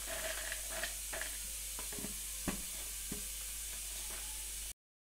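Almonds clattering into a plastic storage tub as they are dropped in by hand, a scatter of short clicks and rattles with plastic handling noise over a steady hiss. It cuts off suddenly near the end.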